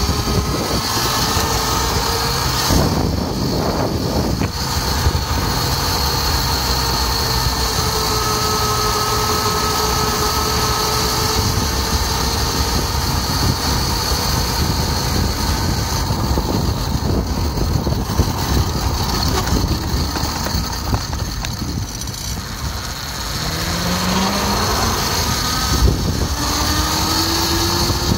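Kids' quad converted to a chain-driven 36 V electric motor, riding on pavement: a steady motor whine over rumbling tyre and wind noise. Near the end the whine drops low, then climbs as the quad picks up speed again.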